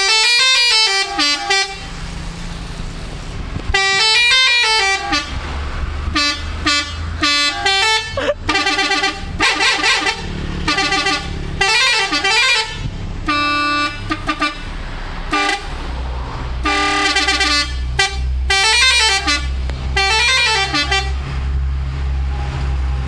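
Multi-tone telolet air horn of a Shantika bus playing about a dozen short melodic bursts, the tones stepping up and down in jingle-like phrases, with the bus engine running low underneath.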